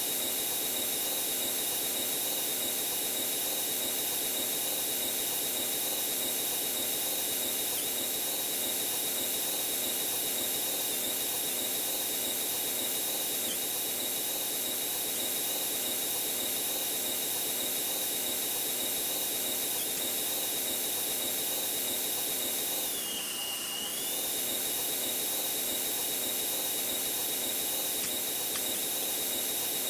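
Airplane engine and cabin noise played fast-forward: a steady high-pitched whine over hiss. About 23 seconds in the whine dips briefly lower in pitch and level, then comes back.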